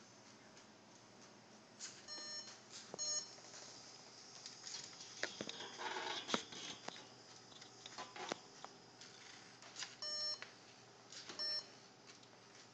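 Short electronic beeps from a Lego Mindstorms NXT brick's speaker, about five spread through the stretch, with scattered sharp clicks and a brief rustle in the middle.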